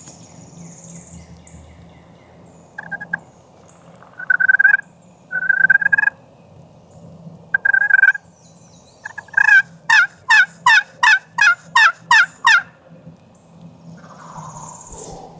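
Turkey call sounding hen yelps: a few single yelps, then a run of about ten quick yelps, each falling in pitch, about three a second.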